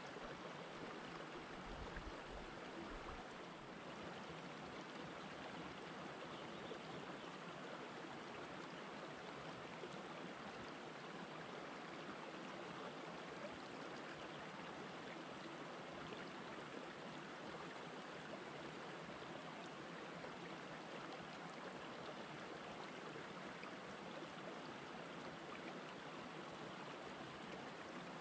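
Shallow rocky stream flowing over and between boulders: a faint, steady babble of water.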